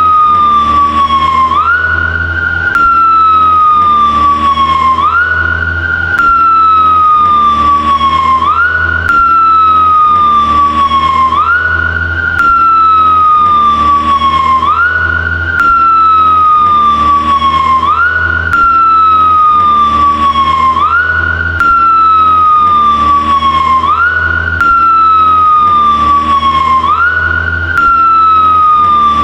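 Police motorcycle siren wailing: each cycle rises quickly and then falls slowly, over a steady low engine hum. The same short stretch repeats about every three seconds, cutting and restarting abruptly each time.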